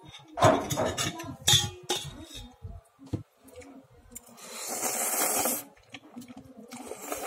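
A man slurping instant noodles off a fork, with one long noisy slurp lasting about a second past the middle. A few louder bumps and mouth noises come near the start.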